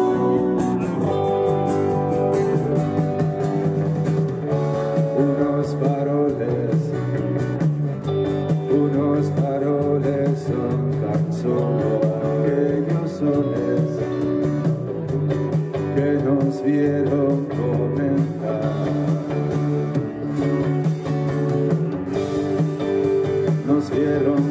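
Rock band playing live: electric guitar over a steady drum beat, with a voice singing at times.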